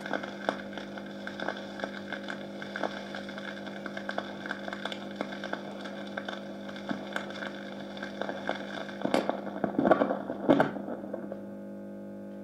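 Sound postcard (flexi-disc) playing on a Bambino record player after the song has ended: the stylus picks up surface crackle and scattered clicks over a steady electrical hum. About ten seconds in come two louder noisy bursts, then the clicks stop and only the hum is left.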